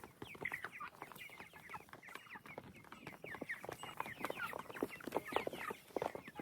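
A flock of four-week-old meat chickens cheeping and clucking, many short high calls overlapping without a break. The birds are excited over a nearly empty feeder.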